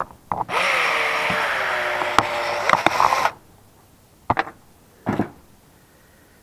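Cordless drill motor running for about three seconds, backing out a screw from the RV heater's outside cover, its whine dipping slightly in pitch as it takes the load and then holding steady. Two short knocks follow near the end.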